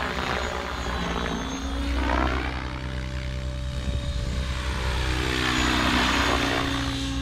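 Blade 700X electric radio-controlled helicopter in flight, its motor and rotor whine shifting in pitch and swelling louder twice as it passes back and forth.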